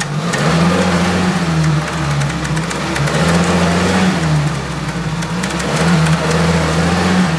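Soviet off-road jeep's engine revving up and falling back about three times as the jeep crawls through deep mud under load.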